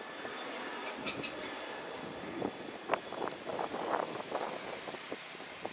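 Jet engine noise from a Lion Air narrow-body airliner rolling along the runway, heard across the airfield as a steady rush with irregular louder bursts.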